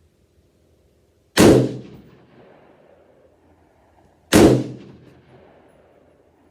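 Two single shots from a Rock River AR-15 rifle, about three seconds apart, each with a sharp crack and an echoing tail that dies away over about a second.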